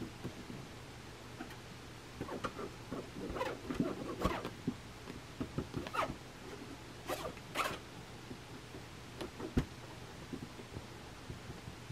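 Cat claws scraping and pawing at the woven fabric mat of a mini trampoline, in irregular short scratchy strokes, with a single thump near the end.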